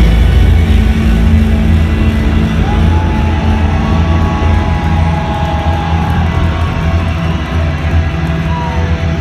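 Instrumental post-rock band playing loudly live: electric guitars, bass and drums in a dense, sustained wall of sound with a heavy low end. Long held lead-guitar notes slide above it, and one note falls away near the end.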